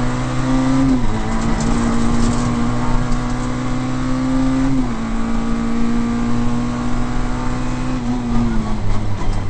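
Peugeot 106 rally car engine heard from inside the cabin, pulling hard down a straight. The pitch climbs steadily and drops sharply at upshifts about a second in and near the middle, then falls away near the end as the car comes off the throttle.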